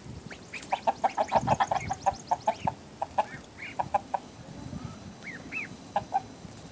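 Chickens clucking in quick runs of short repeated notes, several bursts of about eight a second, with a few higher single calls between them.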